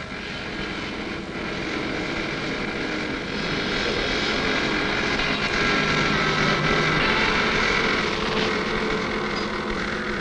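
Paper tape punch of a computer set running, a steady mechanical whir with a held hum as the punched tape feeds out, a little louder through the middle.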